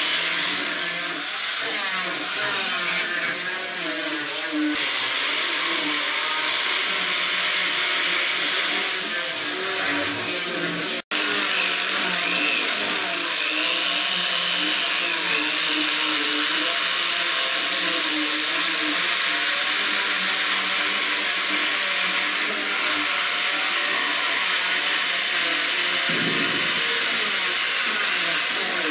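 Electric jigsaw running continuously as its blade cuts a curve through thick rosewood, a steady buzzing saw noise. It cuts out for an instant about eleven seconds in.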